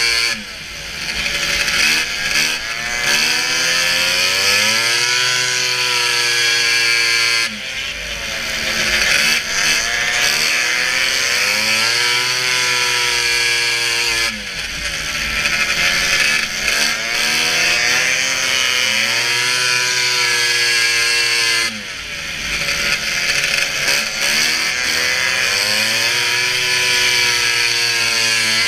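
Polaris XCR racing snowmobile's two-stroke triple engine running hard at high revs. Four times, about every seven seconds, the throttle is briefly lifted and the note drops, then climbs back as it pulls again.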